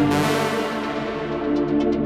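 Electronic background music with steady synthesizer chords; the high end fades away through the first second and a half, then quick hi-hat ticks come back in near the end.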